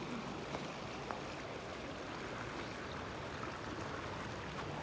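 Steady rushing noise of a river flowing over stones, with a couple of faint ticks about half a second and a second in.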